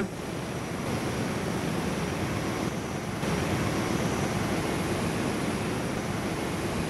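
Gas flames burning with a steady, even rushing hiss.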